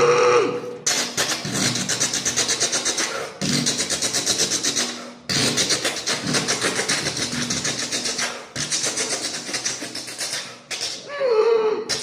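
Vocal mimicry of a train running, as heard from outside: fast, rhythmic breathy chugs, broken by three short breaks. Near the end comes a short hoot that falls in pitch.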